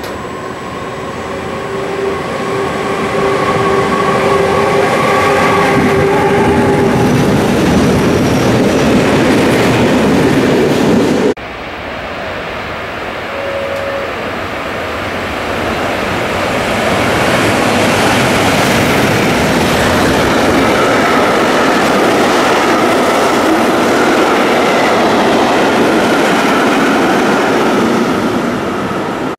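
A train passing close by at speed: a loud rush of wheels on rail, with steady whining tones in the first several seconds. The sound cuts off abruptly about eleven seconds in, and another loud train passing follows.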